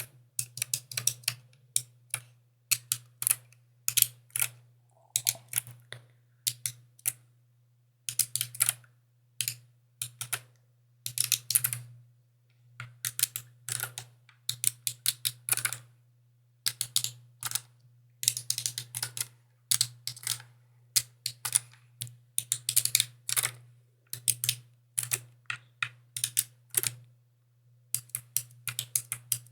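Mechanical keyboard being typed on in quick bursts of crisp keystroke clicks, with short pauses between bursts. A faint steady low hum sits underneath.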